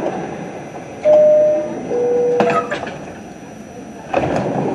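An R68 subway car's door-closing chime: two steady tones, the second lower, starting about a second in, the signal that the doors are about to close. About four seconds in comes a burst of rumbling noise as the doors slide shut.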